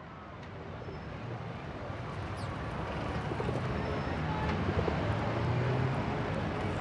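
Outdoor ambience fading in from silence: a steady rushing hum that grows louder, with a few short high chirps.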